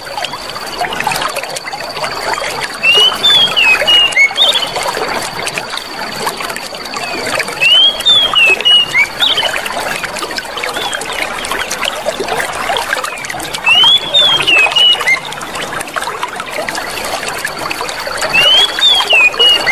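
Clear running water trickling steadily, with a short bird chirping phrase of rising-and-falling notes repeating about every five seconds over it. A thin steady high tone comes and goes in the background.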